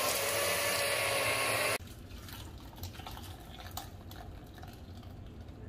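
Electric hand blender running in a pot of butter chicken gravy, a steady whir that cuts off suddenly about two seconds in. Then thick gravy is poured through a plastic mesh sieve into a bowl, a faint pouring and dripping with a few light taps.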